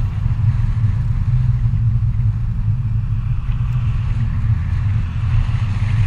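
Car driving in traffic, heard from inside the cabin: a steady, loud low rumble of engine and road noise.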